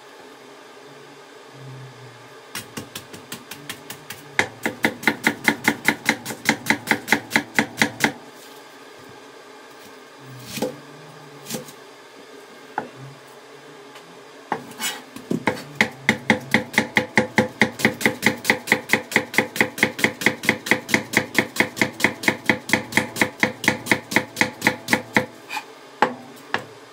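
Kitchen knife thinly slicing a new-season onion on a plastic cutting board: fast, even knife taps about five a second. The run stops a few seconds in, a few single cuts follow, then a longer fast run resumes about halfway through.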